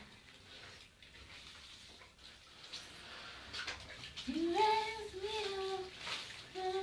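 Faint water sloshing in a basin as laundry is handled, then from about four seconds in a voice singing a tune in long held notes.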